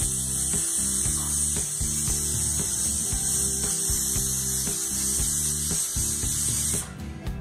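Pressure cooker whistling: steam hissing out steadily under the weight valve, then cutting off suddenly about seven seconds in. The whistle is the sign that the cooker is up to pressure, and it is one of the whistles counted to time the dal's cooking. Background music with a steady beat plays underneath.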